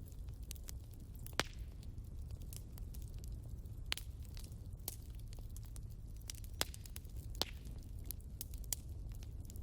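Wood fire crackling: irregular sharp snaps and pops over a low steady rumble.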